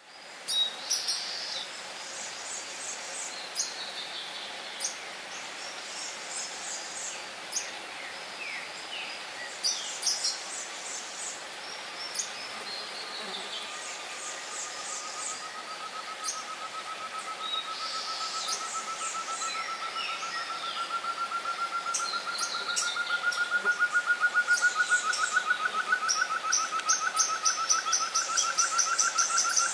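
Such's antthrush singing its long song: a rapid string of short notes that begins faintly about twelve seconds in, then grows steadily louder while rising slowly in pitch. Other forest birds chirp and trill at a higher pitch throughout.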